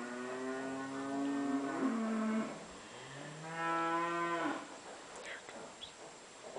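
Cattle mooing twice, two long drawn-out calls: the first lasts about two seconds and drops a little in pitch at its end, and the second comes about three seconds in and is shorter.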